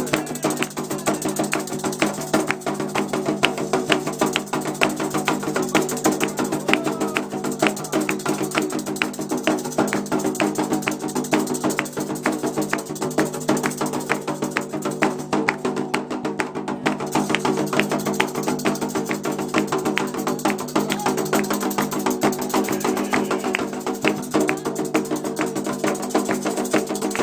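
Candomblé drumming on atabaque hand drums: a fast, driving rhythm of dense, even strikes with a sharper wood-block-like accent pattern. A steady low drone runs underneath, and there is no singing.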